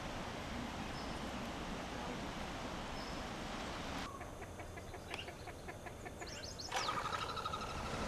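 A steady hiss of outdoor background noise that changes abruptly about four seconds in to birds calling: a run of repeated short chirps, a few quick falling notes, then a rapid trill of short notes near the end.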